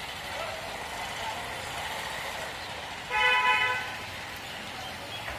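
A vehicle horn gives one steady honk, a little under a second long, about three seconds in, over a constant hum of street traffic.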